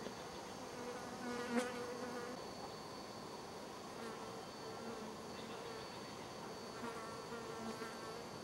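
A flying insect buzzing close to the microphone, passing once about a second in with a brief tap, then buzzing again from about four seconds until near the end.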